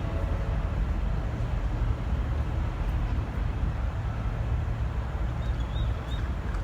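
Steady low rumble of a diesel train.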